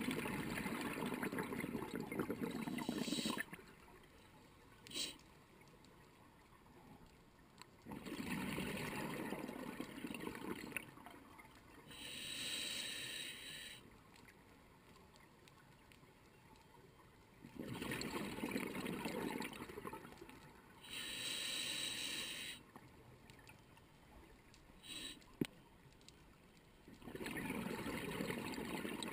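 Scuba diver breathing through a regulator underwater: long bubbling exhalations alternating with shorter, higher-pitched hissing inhalations, one breath cycle roughly every nine to ten seconds.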